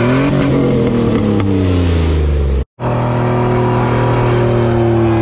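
Pickup truck engine revving up and held at high revs during a burnout. The sound cuts out completely for a moment about halfway through, then the engine is heard held high again.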